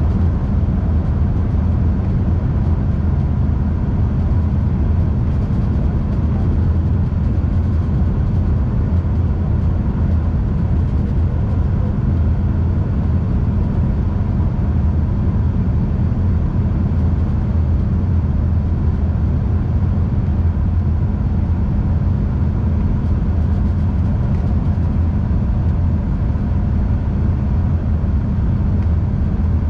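Steady cabin noise of an Embraer E145 regional jet: a constant low rumble from its rear-mounted Rolls-Royce AE 3007 turbofans, with a faint steady whine above it.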